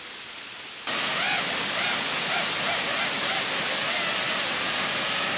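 Waterfall rushing: a loud, steady roar of falling water that cuts in abruptly about a second in, after a quieter hiss.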